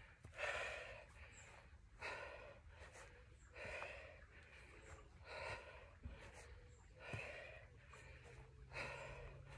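A woman's hard exertion breathing while doing continuous forward-and-back lunges: six faint, sharp breaths, one about every second and a half.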